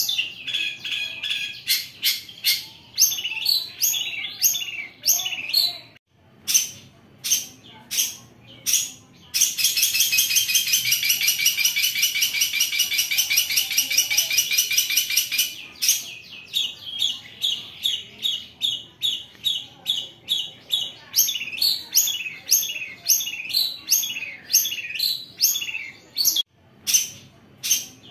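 Long-tailed shrike (cendet) singing: rapid runs of short, sharp repeated chirps and slurred notes. In the middle comes a loud, harsh rasping chatter, the rough "besset", lasting about six seconds.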